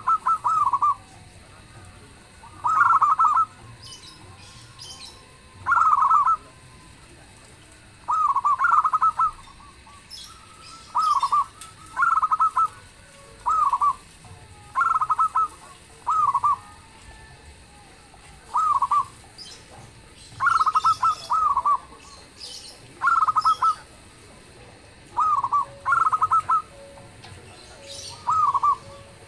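Zebra dove (perkutut) cooing: short phrases of rapid, staccato rolling notes, repeated every second or two. Faint high chirps from smaller birds come in now and then.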